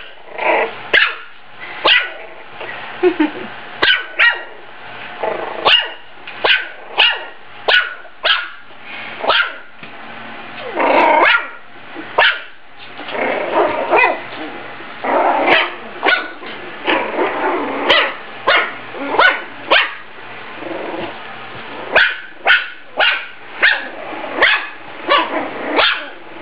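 Small puppy barking over and over in short, sharp yaps, about one to two a second, broken by a few longer stretches of noise in the middle.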